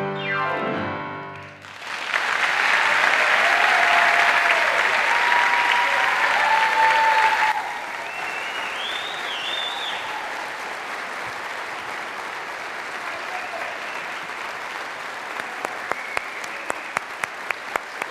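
A children's choir's piano-accompanied song ends on its last notes, and the audience breaks into applause with a few cheers. The applause drops lower about halfway through, and single claps stand out near the end.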